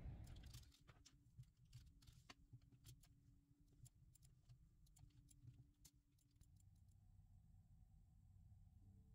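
Near silence with faint, scattered small clicks and taps over the first six seconds, after a louder noise fades away in the first second.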